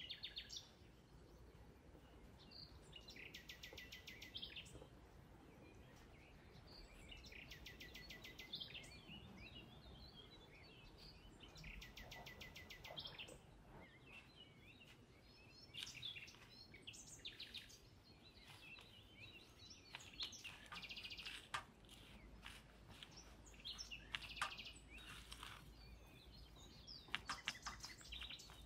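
Faint outdoor background with a bird calling several times in short, rapid high trills, each lasting about a second and a half. Scattered soft clicks and crackles come in between.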